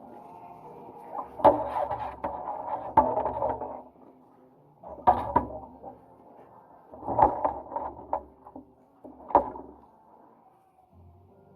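Dishes knocking and clinking against each other during washing-up, in four separate bursts of clatter with short pauses between.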